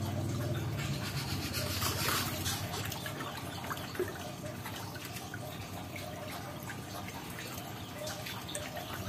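Water trickling, with scattered small clicks and one sharper click about four seconds in.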